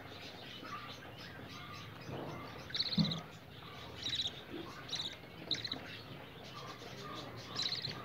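Budgerigar chick giving short buzzy begging chirps, several times over, while being spoon-fed formula. A low knock sounds about three seconds in.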